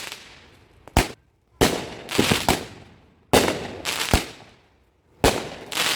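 Consumer fireworks going off: about eight sharp bangs at irregular intervals, each trailing off in a fading hiss.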